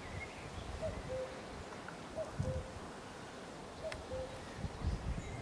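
A bird's repeated two-note call, a short higher note followed by a longer lower one, about every one and a half seconds, with a few brief low rumbles in between.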